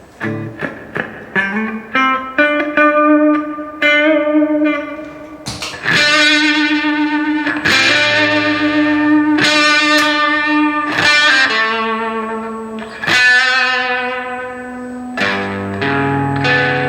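Electric guitar played through an Electro-Harmonix Oceans 11 reverb pedal. A run of quickly picked single notes gives way to struck chords, each left to ring and fade with a long reverb tail.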